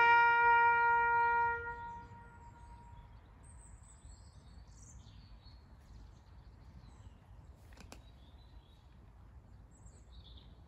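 A trumpet bugle call ends on one long held note that dies away within about two seconds. Then comes quiet outdoor air with a few faint bird chirps and a single sharp click near the end.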